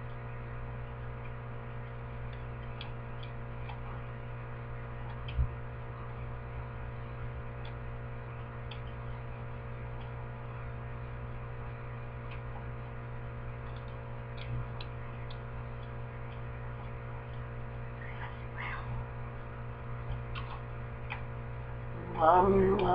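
Steady electrical mains hum of quiet room tone, with faint scattered ticks and one soft thump about five seconds in.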